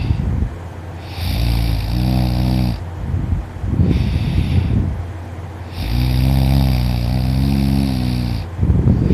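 A man snoring loudly in deep sleep. Twice a long pitched snore is followed by a rougher, noisier breath, about four to five seconds per breath cycle.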